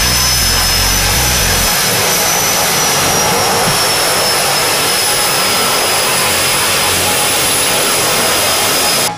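Twin turboprop engines of a de Havilland Canada DHC-6 Twin Otter running as the plane taxis: a loud, steady propeller rush with a high turbine whine on top. It cuts off suddenly near the end.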